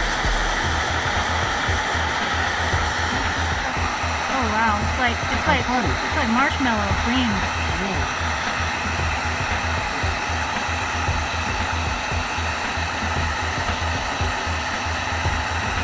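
Wagner heat gun running steadily, a constant blowing hiss of hot air as it melts plastic for a kayak hull repair.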